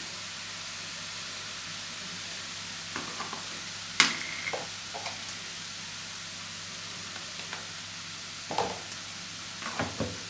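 Mixed vegetables sizzling steadily in oil in a kadai, with a few sharp clicks and clinks of kitchen utensils, the loudest about four seconds in.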